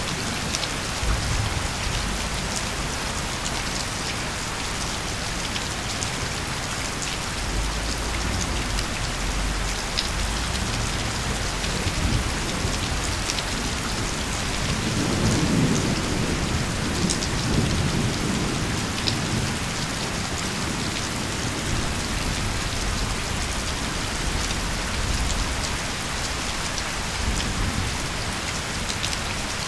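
Steady heavy rain with scattered individual drop ticks, and low thunder rumbling that swells twice, around a third of the way in and again around the middle.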